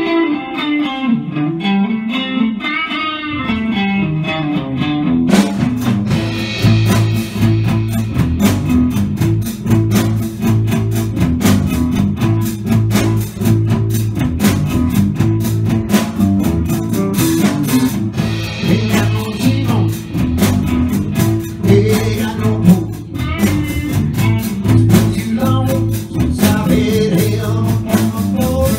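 Live electric blues band playing. A lone electric guitar plays the opening line for about five seconds, then bass and drums come in with a steady beat.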